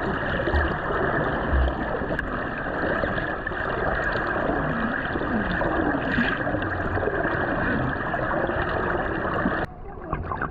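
Water rushing and gurgling around a snorkeller's camera, a loud, steady wash of water noise that drops off suddenly near the end.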